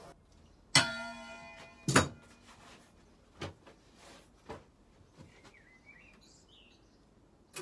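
Freshly quenched cast-silver coin let go from pliers into a water-filled metal bowl: a clink about a second in, with the bowl ringing briefly, then a second knock a second later. A few faint ticks follow.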